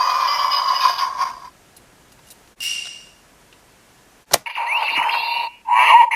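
Electronic sound effects from the small speaker of a Kamen Rider Fourze DX toy, cutting off about a second and a half in. After a short beep, a sharp click comes about four seconds in, then more sound effects in short runs.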